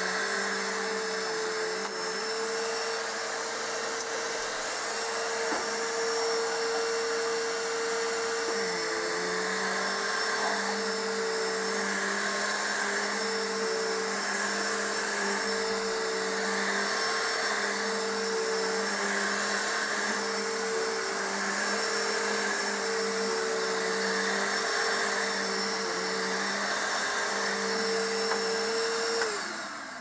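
Bissell PowerForce bagless upright vacuum running on carpet. Its motor note wavers in an even rhythm, about once a second, as it is pushed back and forth. It is running normally, and near the end it is switched off and its motor winds down.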